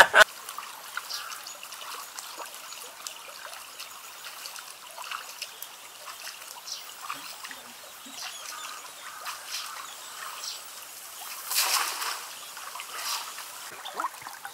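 Shallow river water trickling, with light splashes and drips as a man wades through it and works his hands in the water; a louder splash near the end.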